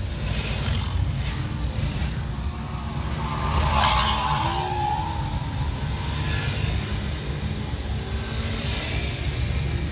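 Suzuki Carry 1.0's four-cylinder engine running under way, with tyres on a wet road, heard from inside the cab: a steady low rumble that swells briefly about four seconds in.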